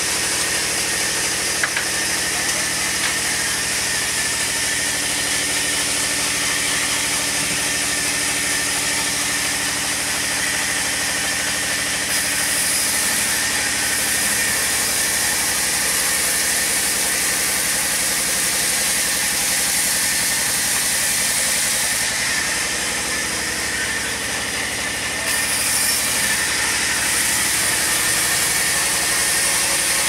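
Large vertical band sawmill running steadily, with a constant machine hum under the hiss of the blade cutting through a log. The high hiss changes a few times as the cut goes on.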